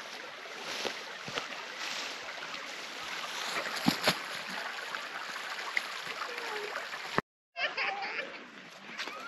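Footsteps crunching through dry grass and brush, with a few sharper snaps of twigs, over a steady outdoor rush. The sound cuts out abruptly for a moment about seven seconds in, and fainter outdoor sound with distant voices follows.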